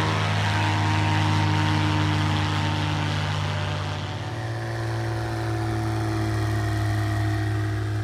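Propeller-driven light plane with a Honda-based Viking auto-conversion engine, a Rans S-7, flying past with a steady engine-and-propeller drone. About halfway through it switches to a second pass, whose pitch sinks slowly as the plane goes by.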